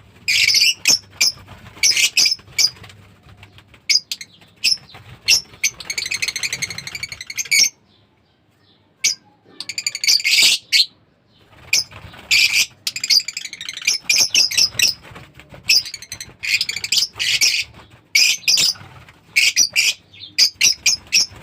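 Birds calling in repeated short, loud, high-pitched bursts, with a longer rapid chattering call about six seconds in and a brief lull around eight seconds in.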